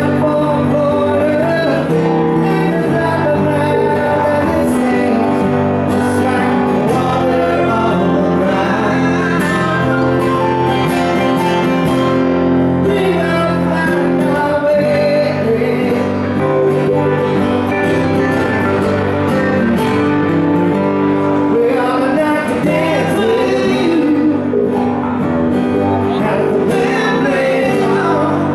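Two acoustic guitars playing a song live, with a man singing over them.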